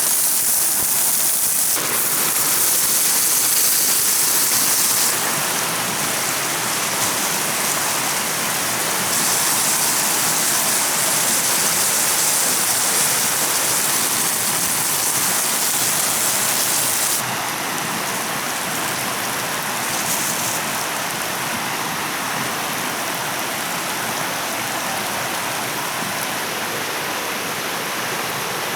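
Steady hiss of water, like rain or a rushing stream, with no distinct knocks or crackles. It shifts abruptly in loudness and brightness a few times, about 2, 5, 9, 17 and 20 seconds in.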